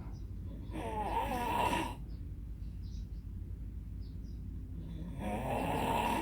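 Someone snoring: two rasping snores about four seconds apart, each a little over a second long.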